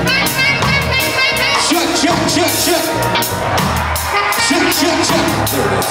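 A live band playing an upbeat song with a drum kit and a singer's voice over it.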